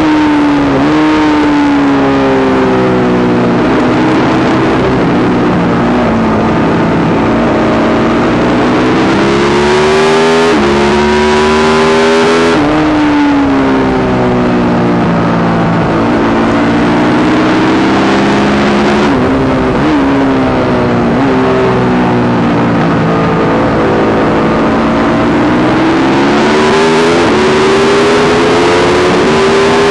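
Yamaha YZ450 single-cylinder four-stroke race engine under load, its pitch climbing and falling as it is ridden hard, with sharp drops in revs about twelve seconds in and again around nineteen seconds. It is running with a constant misfire that the owner has not cured despite changing carb settings, fuel system, ignition, coil and generator.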